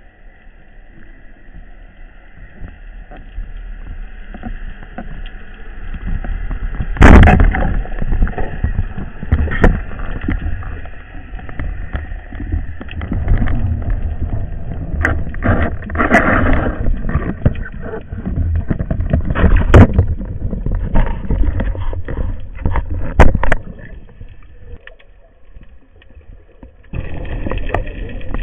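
Underwater camera housing on a speargun picking up water rushing and sloshing as the spearfisher swims. Irregular sharp knocks start about seven seconds in and run until near the end.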